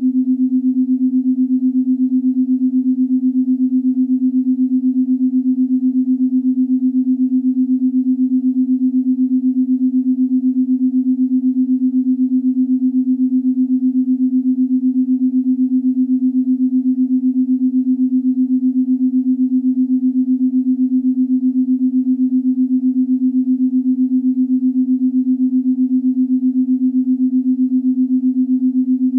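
A single steady synthesized low tone, held unchanged, with a fast even pulse in its loudness, used as a meditation drone.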